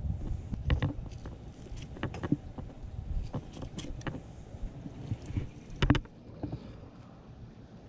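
Mahi-mahi being filleted: a knife and fish knock and scrape on a cleaning board in irregular sharp knocks, the loudest about six seconds in, over a low steady rumble.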